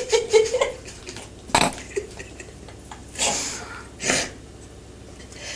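A cat jumping against a wallpapered wall: a sharp knock about a second and a half in, then two short scuffling bursts about a second apart.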